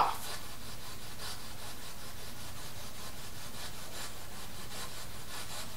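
Spirit box radio sweeping through stations: a steady static hiss with faint, regular ticks every fraction of a second.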